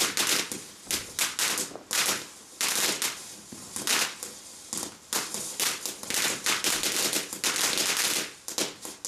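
Ground firework fountain spraying sparks, with a rapid, irregular run of sharp cracks and pops from its bursting stars over a steady hiss. The crackling stops just before the end.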